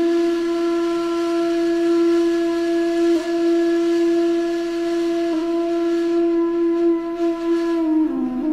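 A single long held note on a wind instrument, steady in pitch with a few even overtones, stepping down to a lower note near the end.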